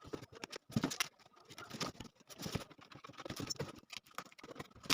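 A cardboard shipping box being opened and handled by hand: irregular scratching, scraping and light tapping of cardboard and packing.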